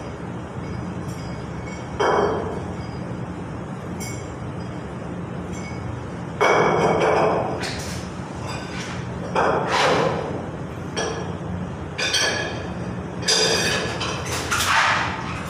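Irregular metallic knocks and clinks of hand work at a boiler's open heating-element port, every second or two, some ringing briefly. Underneath is a steady low hum.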